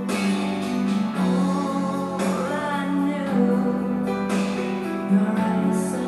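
Music playing: a song with singing over instruments.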